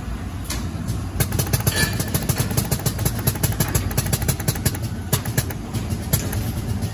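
18-colour plastisol (soft PVC) dispensing machine running, with rapid irregular clicking as its nozzle heads dispense and move. The clicking starts about a second in over a steady low hum.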